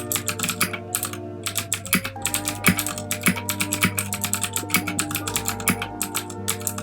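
Fast typing on a Ducky One 2 Mini 60% mechanical keyboard with clicky Cherry MX Blue switches: a quick, uneven stream of keystroke clicks, several a second, over background music with held chords and a steady low bass.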